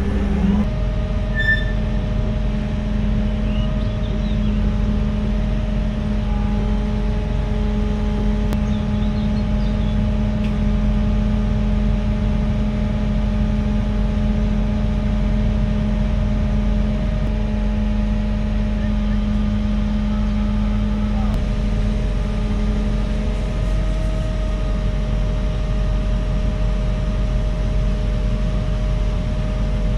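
Heavy machine engine running steadily at constant speed, a continuous drone whose tone shifts slightly about two-thirds of the way through.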